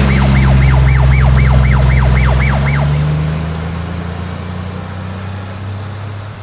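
Siren in a fast yelp, rising and falling about three or four times a second, over a steady low engine hum. The siren stops about three seconds in and the hum then fades.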